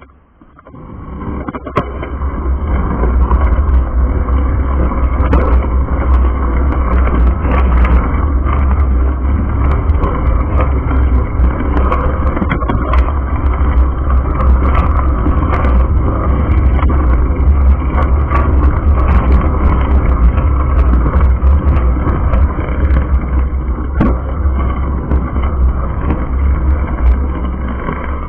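Wind buffeting a bike-mounted action camera's microphone while riding, a loud, steady rumble mixed with road noise, building up over the first few seconds as the bike gets going.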